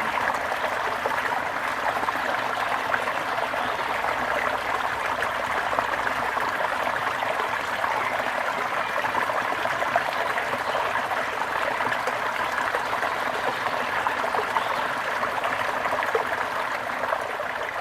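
Running water trickling and splashing steadily with no pauses.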